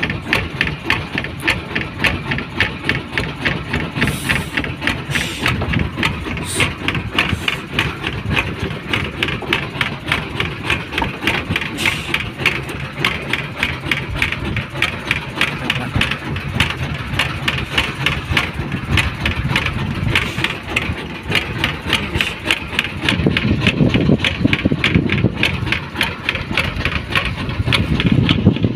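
Small fishing boat's engine idling, an even rapid beat that holds steady throughout. A heavier low rumble swells for a couple of seconds near the end.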